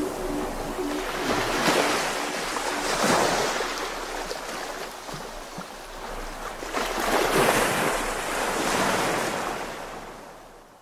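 Wind buffeting the microphone, a noisy rush that swells in two gusts, about two seconds in and again about seven seconds in, then fades out near the end. The last of a background song runs out in the first second.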